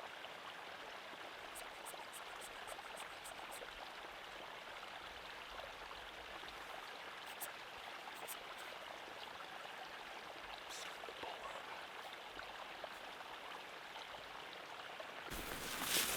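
Steady rushing of a small stream, with a few faint high ticks early on. Near the end comes a louder rushing burst.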